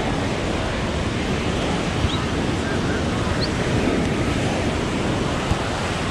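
Ocean surf washing onto the beach in a steady wash of noise, with wind buffeting the microphone.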